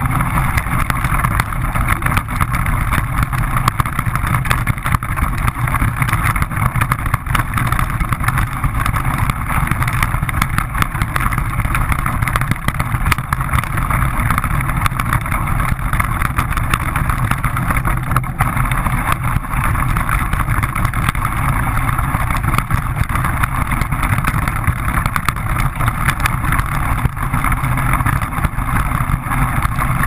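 Axial AX10 Deadbolt RC truck's electric motor and geared drivetrain whining steadily as it drives through snow, heard from a camera mounted on the truck itself.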